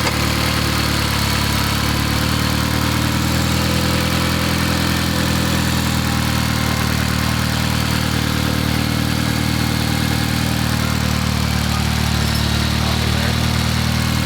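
Mitsubishi Evo X's turbocharged 2.0-litre four-cylinder engine idling steadily after a new fuel rail and fuel parts were fitted. It is still running on its old tune, so the fuel ratio is unchanged, though to those listening it sounds happy.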